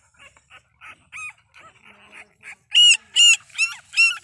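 Nursing pit bull puppies squealing: faint squeaks at first, then, from a little under three seconds in, four loud, high-pitched squeals in quick succession, each bending in pitch.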